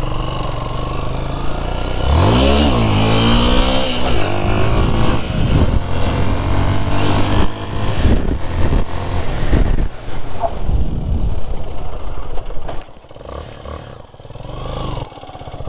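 Motorcycle engine under way. About two seconds in it revs hard, the pitch rising and falling as it accelerates, and it stays loud before easing off and going quieter near the end.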